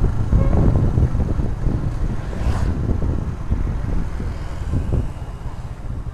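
Motorcycle engine running under the rider, mixed with wind rumble on the microphone, easing off steadily as the bike slows down.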